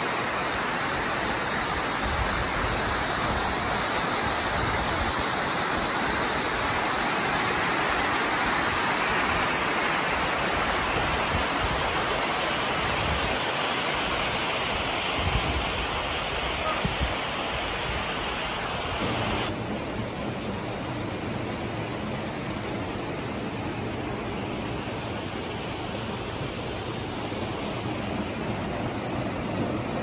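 Steady rush of water from a rocky mountain stream and its small cascades. It becomes a little quieter about two-thirds of the way in, with a couple of brief knocks near the middle.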